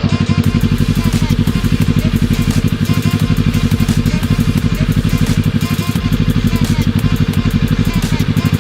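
Kawasaki ER-6n's 649 cc parallel-twin engine idling, a steady rapid pulsing that holds the same pace throughout.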